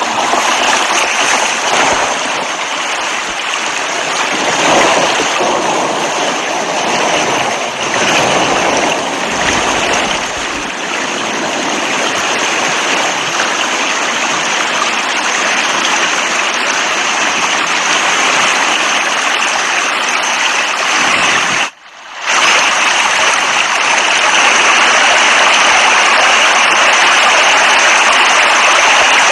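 Heavy rain falling in a steady, dense hiss. About three-quarters of the way through it drops out for a split second and comes back evener.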